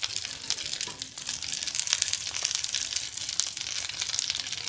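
Masala-coated Indian mackerel (ayala) pan-frying in shallow oil: a steady, dense crackle of sizzling, spitting oil.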